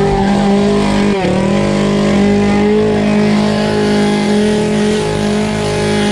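Two-stroke gas chainsaw held at full throttle, a loud, steady engine drone with a brief dip in revs about a second in.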